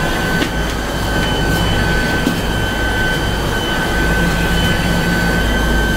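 Steady machine drone: a low rumble with a hum that swells and fades, and a thin, steady high-pitched whine over it.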